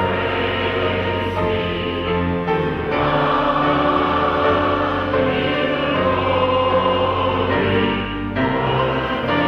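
A choir singing with instrumental accompaniment, sustained chords changing every second or two.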